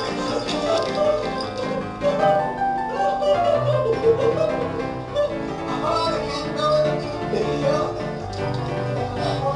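Instrumental background music made of a quick succession of short notes.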